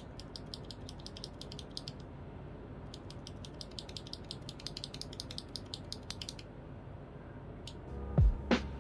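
Typing test on a mechanical keyboard fitted with Akko CS Lavender Purple tactile switches: rapid key clacks in two runs with a short break between, stopping about two seconds before the end. Background music comes in near the end.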